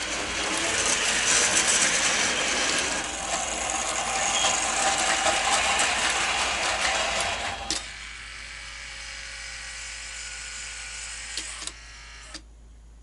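O-gauge model train running on the track: a loud mechanical clatter of wheels over rail joints and whirring gearing. It drops to a quieter run about eight seconds in and stops near the end.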